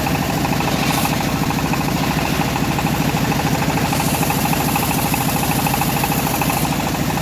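The engine driving a homemade bandsaw sawmill running steadily, with a higher hiss joining for a couple of seconds past the middle.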